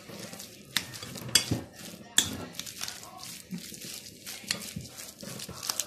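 A hand mixing crumbled cheese and chopped parsley in a glass bowl: soft rustling with scattered, irregular clicks and knocks against the glass.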